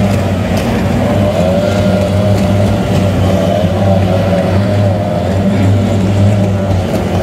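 Several racing boats' two-stroke outboard motors running at speed past the turn mark: a steady, loud engine drone whose higher pitch wavers up and down as the boats pass.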